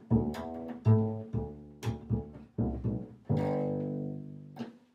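Solo bass plucked in a cha-cha line: a run of separate notes, then one longer note near the end before the playing stops.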